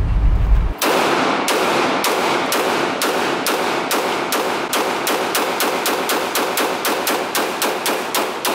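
Semi-automatic pistol fired in a long, rapid string of shots, about three to four a second, each crack echoing in an indoor range. The string starts about a second in, after a low rumble.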